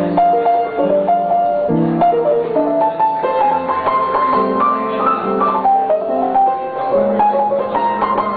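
Solo piano playing: a melody line over sustained chords, climbing to its highest notes about halfway through before falling and rising again.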